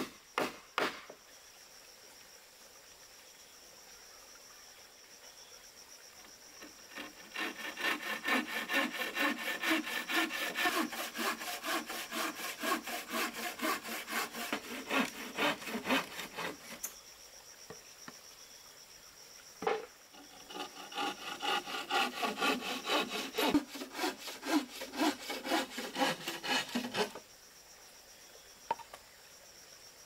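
Wooden frame saw cutting through a wooden plank by hand, steady back-and-forth strokes about three a second in two long runs with a short pause between. A few sharp knocks in the first second, and insects chirring steadily underneath.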